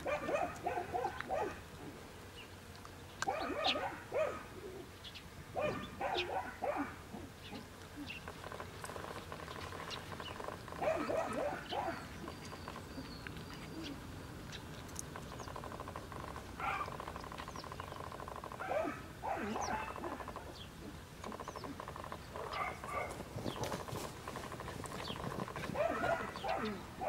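Animal calls in short bursts every few seconds over a faint steady background.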